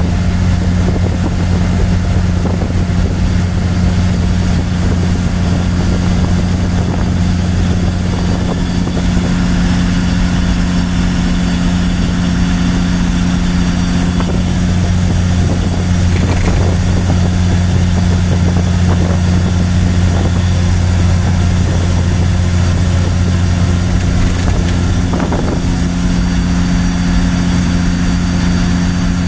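KTTA Cummins diesel in a Peterbilt 359 truck running steadily on the road, heard from inside the cab as a loud, even low drone with no change in pitch.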